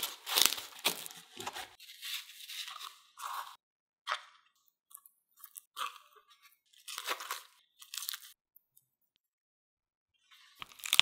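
Chef's knife cutting down through a stack of whole-wheat pita breads on a wooden board, with crisp crunching strokes in the first second and a half. Then come softer, scattered rustles and crinkles as the bread pockets are handled and stuffed, and another dense crunchy run near the end.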